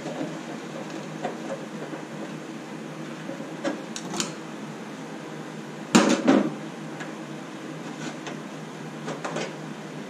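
Hand tools and parts handled on a stainless-steel ultrasonic cleaner housing: scattered small clicks and taps, and a louder metallic clatter about six seconds in as a screwdriver is set down on the steel top. A steady low hum underneath.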